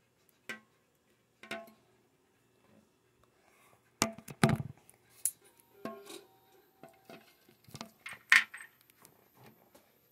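Scattered clicks, clinks and knocks of hands working a motorcycle's key and controls, with a heavier cluster of knocks about four seconds in. A faint, steady high whine starts about five seconds in.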